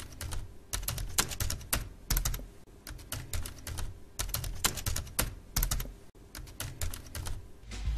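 Fast typing on a laptop keyboard: keystrokes clicking in quick runs with brief pauses between them.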